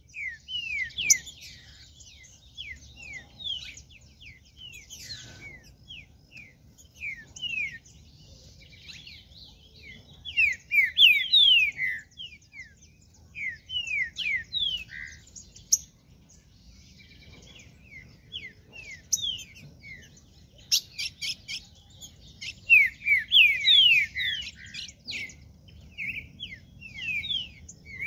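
Green-winged saltators (trinca-ferro) singing: runs of quick, falling whistled notes, in several bursts with short pauses between.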